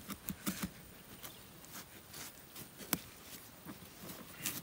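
Knife cutting lengthwise through a whole watermelon, the rind giving a few scattered faint cracks and clicks as the blade works through it.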